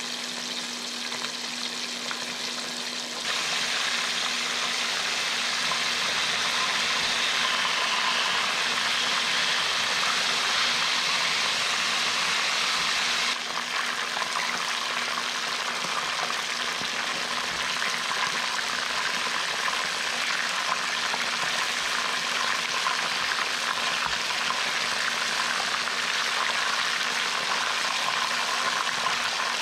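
Starch-coated pollock pieces frying in hot vegetable oil, a steady sizzle. It gets louder about three seconds in and a little quieter just before the halfway point.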